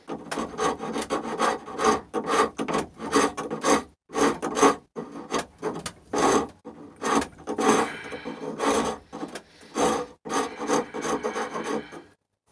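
A coarse hand rasp filing a sawn notch in birch, in quick back-and-forth strokes with brief pauses about four and five seconds in. The rasping stops just before the end.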